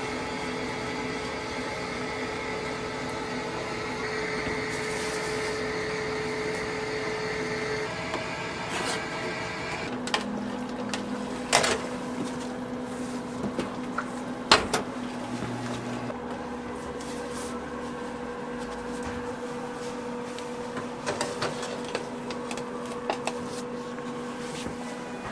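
Steady hum of kitchen appliances, with a few sharp metal clanks and knocks as a metal baking tray of pies is handled and slid into a countertop oven.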